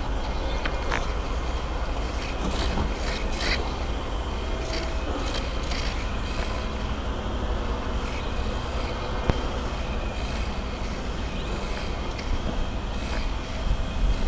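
Steady low rumble of wind and handling noise on a camera microphone, with a few faint ticks.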